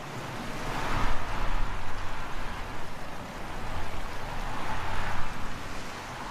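Wind gusting, a rushing noise that swells about a second in, eases off, and swells again around five seconds in.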